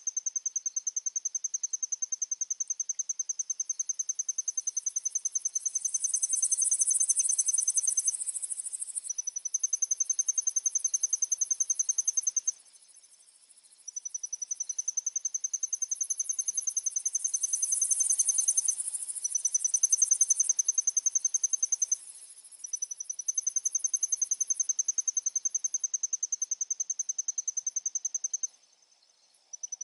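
Insects trilling: a fast, even, high-pitched pulsed trill that stops briefly three times, with a second, higher and hazier insect buzz swelling in and fading out twice.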